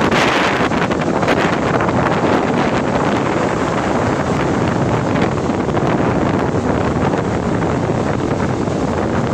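Rough sea surf washing and breaking, with strong wind buffeting the microphone. A steady, loud rush that swells slightly near the start and again just after the end.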